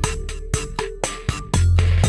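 Background music with a steady beat. The bass drops away and comes back in strongly about one and a half seconds in.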